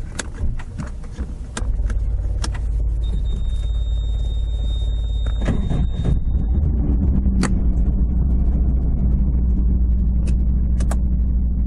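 Toyota AE86 Trueno's 5-valve 4A-G engine, breathing through 50 mm Weber carburettors, running under way as a steady low drone. It comes up about one and a half seconds in and grows fuller about halfway through, with scattered clicks and a thin high tone for a few seconds in the middle.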